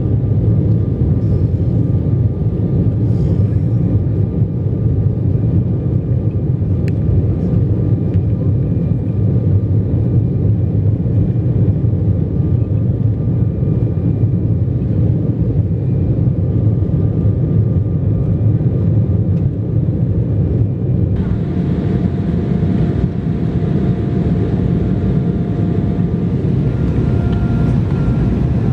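Steady jet engine and airflow noise heard inside an airliner's passenger cabin during takeoff and climb-out. About three quarters of the way in the noise shifts slightly and faint steady tones join it.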